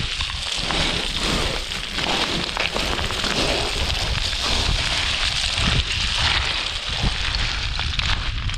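Wind buffeting a body-worn camera's microphone as a mountain runner moves, with irregular crunching footsteps on rocky ground.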